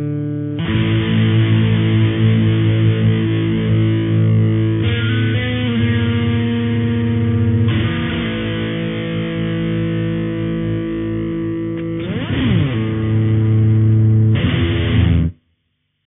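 Buzzy, distorted electronic drone of stacked sustained tones that shifts to a new chord-like block every few seconds. Near the end a brief falling pitch sweep cuts through it, and then it cuts off suddenly.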